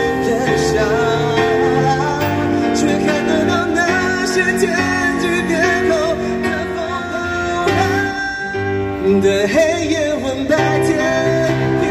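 A male singer singing a slow song through a microphone, accompanied by an electronic keyboard.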